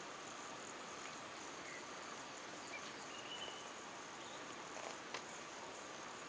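Steady, fairly faint insect chorus with a persistent high-pitched drone. A brief high note sounds about three seconds in, and a single click about five seconds in.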